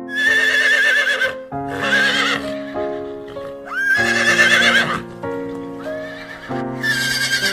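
Horse whinnying four times, each call a quavering high neigh about a second long, over gentle background music.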